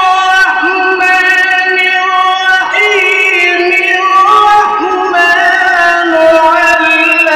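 A male qari reciting the Quran in melodic tajweed style into a microphone. He holds long, drawn-out notes with ornamented turns in pitch between them.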